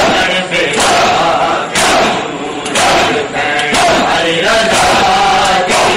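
A crowd of men chanting together while striking their bare chests in unison, giving a loud slap about once a second in time with the chant.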